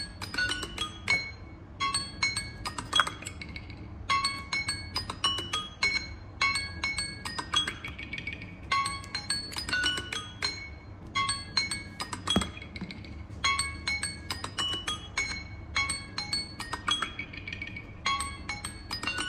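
Smartphone alarm tone ringing: a bright, tinkling chime melody of short notes, repeating in phrases about every two seconds.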